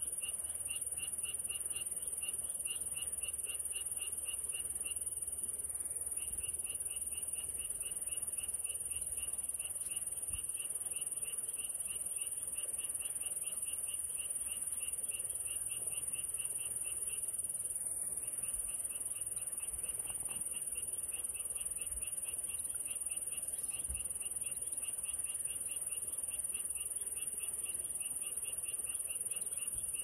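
Steady rain hiss with a high, rapidly pulsing chirping call running through it, which breaks off briefly twice.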